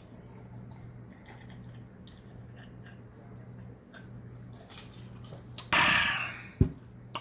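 A man gulping a drink from a glass in quiet swallows, then a loud, breathy "ahh" of relief after drinking, followed by a single sharp click.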